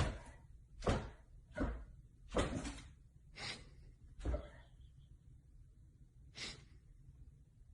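A series of short thuds or knocks, about seven, roughly a second apart, with the last one coming alone about two seconds after the others.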